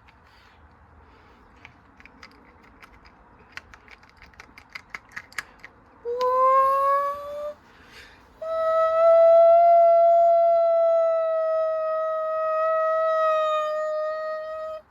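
Washing machine spinning up: ticking from the drum comes faster and faster, then a high motor whine rises, breaks off briefly, and returns to hold nearly steady for about six seconds before cutting off suddenly.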